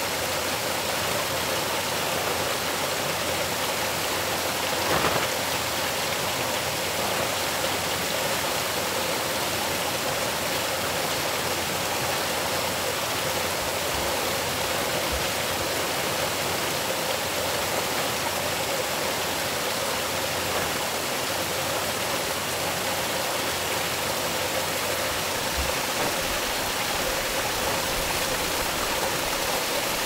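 Steady, even rushing hiss with no rhythm or pitch, and a faint short rustle about five seconds in.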